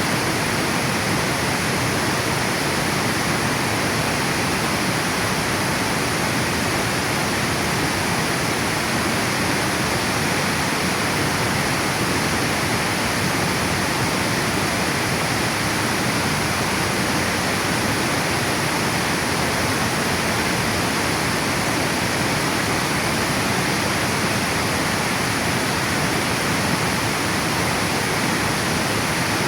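River water pouring over a dam spillway: a steady, unbroken rush of falling water.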